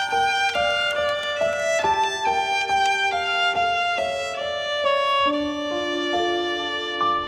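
A short violin-led musical jingle: a melody of held notes, changing pitch every half second or so, with other notes sounding under it.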